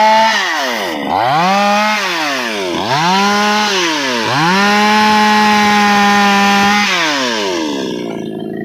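Two-stroke chainsaw engine revved up and down: four bursts at high speed, the last held steady for about two seconds. The engine then drops back to a low idle near the end.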